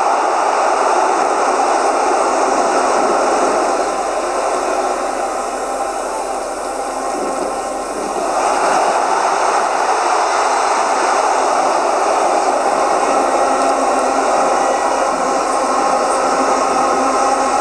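Steady noise of a large stadium football crowd, easing off about four seconds in and swelling back up about halfway through.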